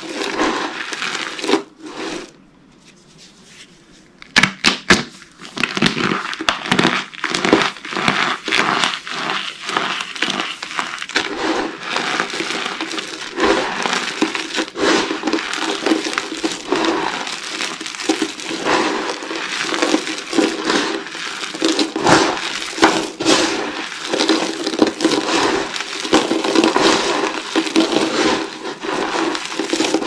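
Dry soap pieces and shavings dusted with cornstarch crunching and crackling as hands squeeze and crush them. There is a short lull about two seconds in, then a few sharp cracks before the dense crunching resumes.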